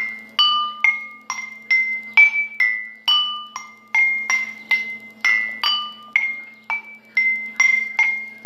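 Water-filled drinking glasses struck one after another at a steady pace of about two strikes a second. Each gives a short, bright ringing note, and the pitch changes from glass to glass with the water level. A faint steady hum runs underneath.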